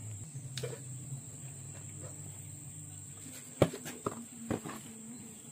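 Insects chirring steadily at a high pitch, with a few sharp clicks and taps scattered through; the loudest click comes a little past halfway.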